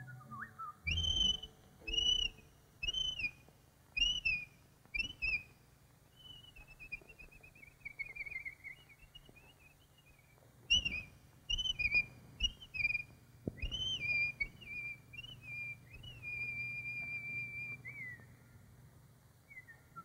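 Whistled bird chirps on an old cartoon soundtrack. A run of short notes that each rise and fall, about one a second, gives way to a falling warble. A second, quicker run then ends on a long held note that slides slightly down.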